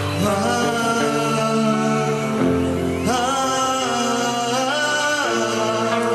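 Background music with a singing voice over steady instrumental chords.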